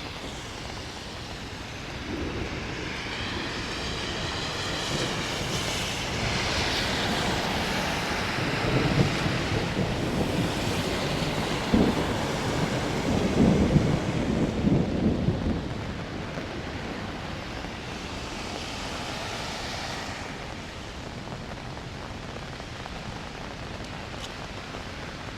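Steady rain hiss with a long roll of thunder rumbling through the middle, loudest a little past halfway, then dying away back to the rain.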